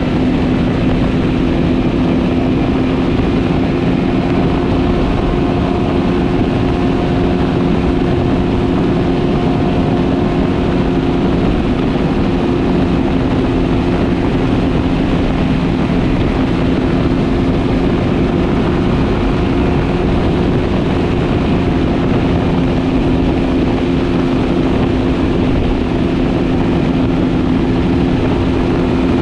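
Motorcycle engine running at a steady, unchanging pitch while cruising at highway speed, with wind rushing over the microphone.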